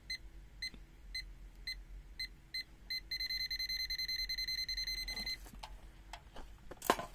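LOMVUM DM616 multimeter's non-contact voltage (EF) detector beeping. Short high electronic beeps come about twice a second, then for about two seconds the beeps come so fast they nearly run together, the meter's sign of a stronger electric field. Handling clicks follow, with one sharp click near the end.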